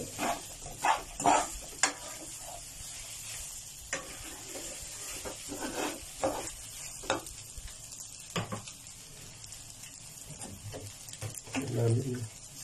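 Fried rice sizzling in a nonstick pan while a spatula stirs and scrapes it, giving irregular short scrapes and knocks over a steady low sizzle.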